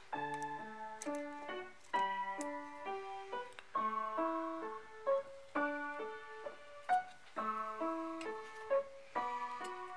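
Background keyboard music: a melody of short, quickly changing notes in phrases of about two seconds.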